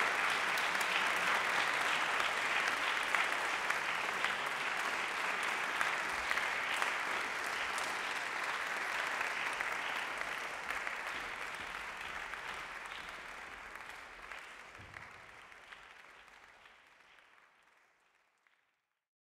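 Audience applauding, a dense patter of clapping, steady for about ten seconds and then fading out over the last several seconds.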